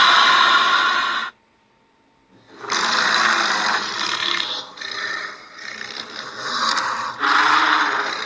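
Dragon roar sound effects: one roar cuts off about a second in, and after a second of silence another begins, wavers, and swells loud again near the end.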